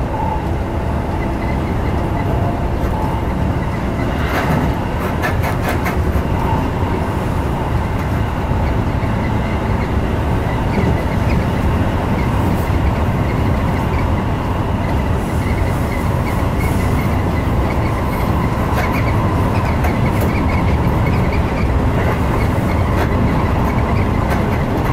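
Electric commuter train running along the line, heard from inside its front cab: a steady rumble of wheels on rail, with a quick run of clicks about four to six seconds in.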